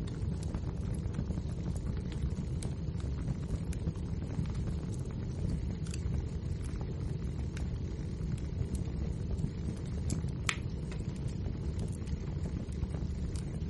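Wood fire burning: a steady low rumble of flames with scattered sharp crackles and pops from the burning logs, one louder pop about ten and a half seconds in.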